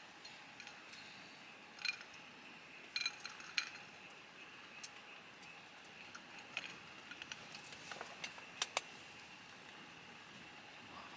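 Scattered light clinks and taps of tableware being handled, sharpest about two, three and a half, and nearly nine seconds in, over a faint steady hiss.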